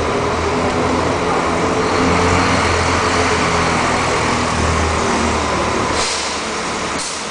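A coach's diesel engine running steadily at low speed as the coach moves slowly past. Near the end come two short hisses of air from the coach's pneumatic system.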